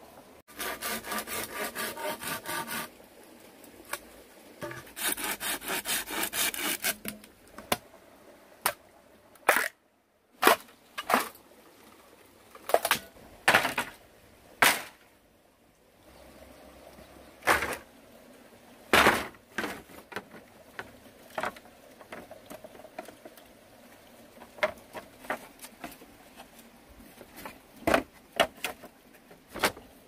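Bamboo being hand-sawn in two short runs of fast, even strokes, followed by a series of separate knocks as bamboo poles and split strips are handled and set down.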